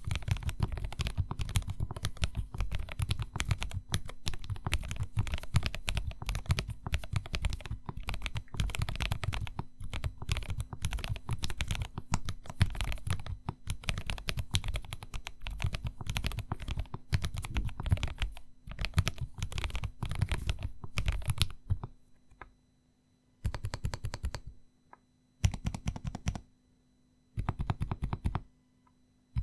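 Typing on a self-built unity69 mechanical keyboard with Banana Split linear switches lubed with Krytox GPL205g0, IFK 4800K keycaps and an acrylic case stack-mounted on Poron sheets. It is a fast, unbroken run of keystrokes for about 22 seconds, then three short bursts of typing with pauses between them, and a fourth burst starting at the very end.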